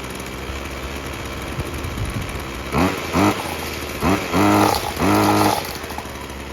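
Ryobi two-stroke brush cutter engine idling steadily, then revved in five quick throttle blips, each rising in pitch, before dropping back to idle. It is running smoothly after a service with a new spark plug and a cleaned air filter.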